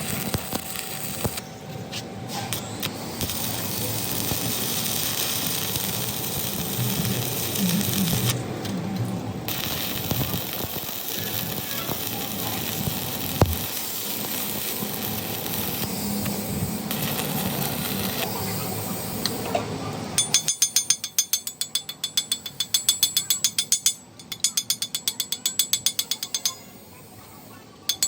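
Steady workshop noise, then from about two-thirds of the way in a ratchet wrench clicking rapidly, about six clicks a second, in several runs with short pauses between them.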